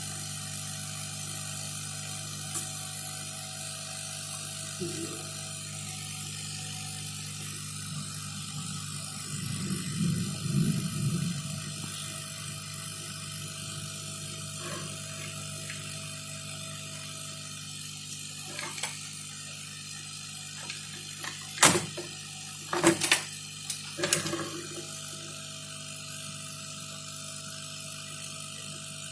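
Hot-air rework blower running with a steady fan hum, with a few sharp clicks and taps about three-quarters of the way through.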